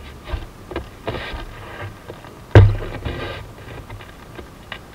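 Knocks and thumps on the camera's microphone as it is handled and moved, with one much louder, booming thump about two and a half seconds in.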